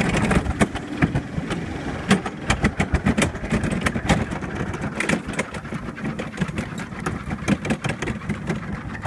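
Summer bobsled rumbling and clattering down a stainless-steel trough, with many sharp knocks and clicks as it runs through the track. The rumble gets gradually quieter as the sled slows toward the bottom station.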